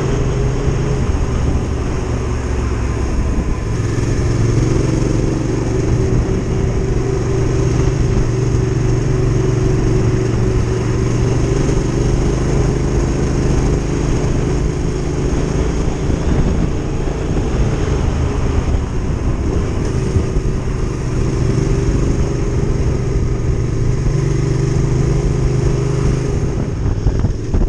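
Adventure motorcycle engine running steadily under way, its note shifting up and down a few times, over a constant rush of noise.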